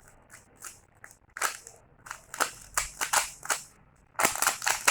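Rubik's cube being scrambled by hand: its plastic layers clack and click as they are twisted, in irregular turns with a quick flurry of clicks near the end.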